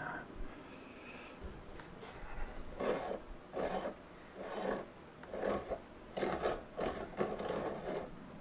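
Steel dividers scratching across the face of a sawn bowl blank as circles are scribed onto it: a run of short scratches, about two a second, starting about three seconds in.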